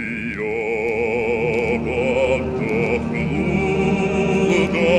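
A deep male bass voice singing a classical Russian romance with wide vibrato, the phrase swelling louder.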